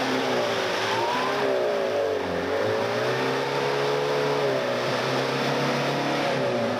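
A 4x4's engine revving up and down as it pushes through deep mud and water, with a steady rush of splashing spray.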